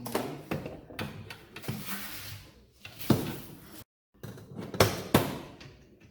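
Clunks, knocks and scraping as a dishwasher heating element is fed through the tub and worked into place, with a few sharper knocks about three seconds in and again near five seconds.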